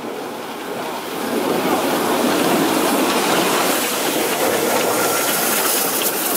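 Small narrow-gauge steam locomotive passing at close range: an even rush of noise that swells about a second in as it draws level and stays loud.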